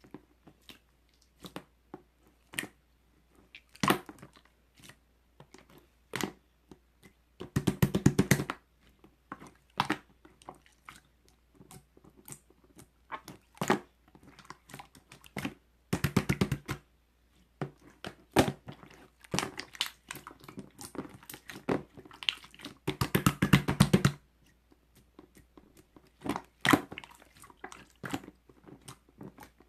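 Close-up handling of small objects: scattered taps and clicks, broken by three rustling, crinkling stretches of about a second each.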